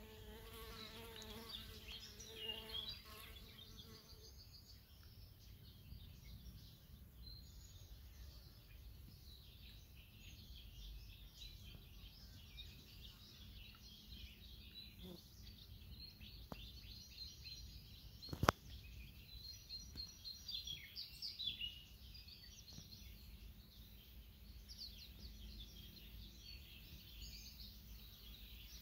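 A flying insect buzzing, loudest over the first four seconds, over faint high chirps throughout. One sharp click about two-thirds of the way through.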